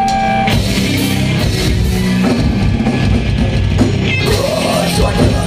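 Live metalcore band playing loudly: distorted guitars and bass over a pounding drum kit.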